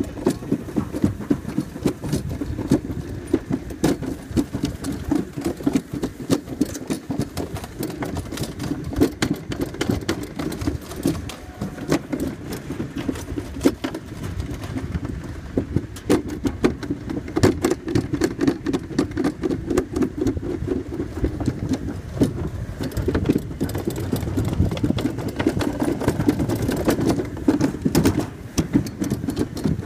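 Summer toboggan sled running fast down a stainless steel trough: a continuous rumble with many sharp clacks and rattles all the way through.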